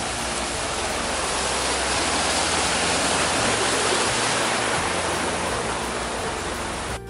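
Loud, steady rush of water from a mountain stream splashing over rocks. It cuts off suddenly near the end.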